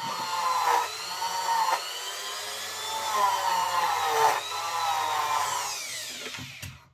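Small handheld rotary tool spinning a wire brush against the wheels of an OO gauge model train to scour off dirt from badly scored wheels. It makes a high whine that wavers in pitch as the brush bears on the wheel, then winds down near the end.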